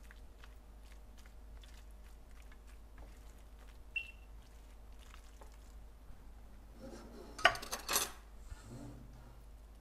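Spatula stirring and scraping a soft vegetable filling in a nonstick frying pan, with faint soft scrapes. A short clatter of the utensil knocking against the pan comes about three-quarters of the way through and is the loudest sound.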